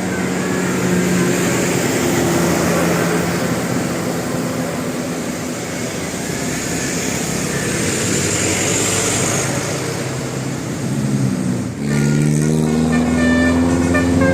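Loud, steady noise of buses passing on the road. About twelve seconds in it breaks off sharply, and a telolet multi-tone bus horn starts playing a tune of rising notes.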